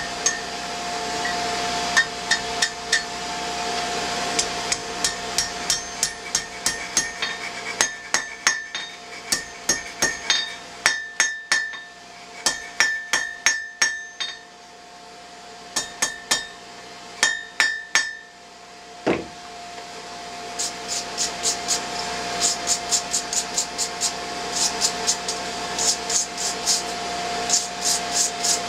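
Hand hammer striking a hot steel bar on an anvil in runs of blows, each blow ringing, with short pauses between runs and a run of quicker, lighter blows near the end; the blacksmith drawing out the point of a fire poker.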